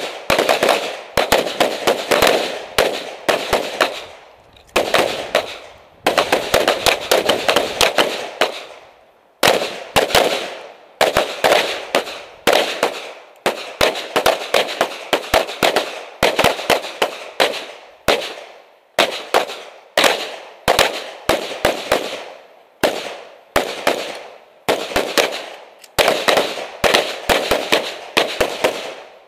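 Rapid strings of gunshots from a pistol or AR-15 carbine being fired in drills: several shots a second, in strings broken by short pauses, each shot with a brief echo.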